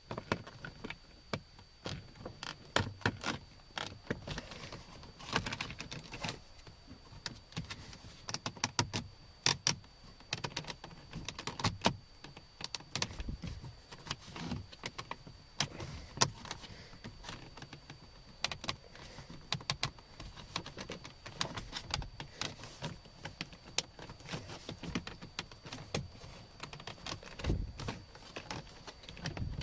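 Plastic interior door trim being handled and worked into place, giving many irregular clicks, taps and small rattles as its tabs are tucked in.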